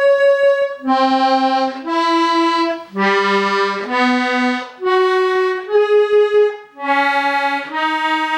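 Hohner Corona IIIR diatonic button accordion sounding its accidentals: about nine single held notes, one after another about once a second with brief breaks between, the pitch jumping up and down from note to note.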